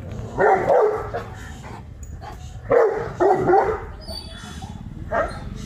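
Dog barking in short bursts, two barks, then another two about two and a half seconds later, and one more near the end. It is territorial barking at another dog beyond the gate.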